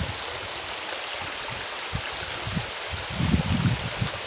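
Shallow creek running over stones and small riffles with a steady rippling rush. Low rumbles on the microphone come and go, strongest about three seconds in.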